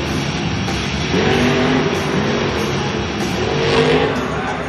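Monster truck's supercharged V8 engine revving up and down hard as the truck drives the dirt course, peaking near the end as it launches off a jump.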